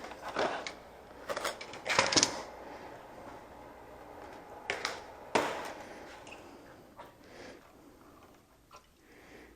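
Scattered knocks and clicks of objects being handled on a work surface, a few over several seconds, fading near the end.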